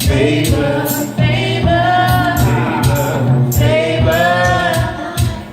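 Music: a sung vocal melody over a drum beat and a deep, steady bass line.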